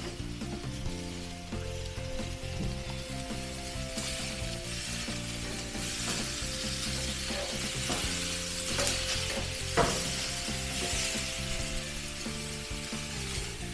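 T-bone steaks sizzling on a gas grill, the sizzle swelling as they are turned with metal tongs, with clicks of the tongs and one sharp clack of metal on the grate about two-thirds of the way through. Soft background music plays underneath.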